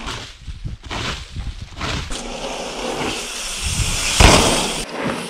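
Mountain bike riding down a dirt trail, with tyre and trail noise and scattered knocks. About four seconds in there is a loud thump as the bike lands a jump.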